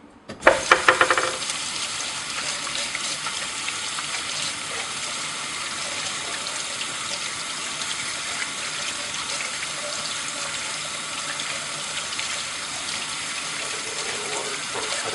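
Kitchen tap turned on with a brief clatter about half a second in, then water running steadily into the sink.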